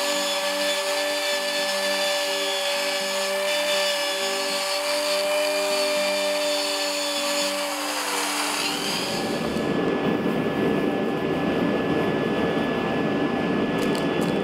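Electric drill running with a steady whine as it drills small dimples into a forged steel tentacle. About eight and a half seconds in, the whine dies away and a steady rushing noise takes over.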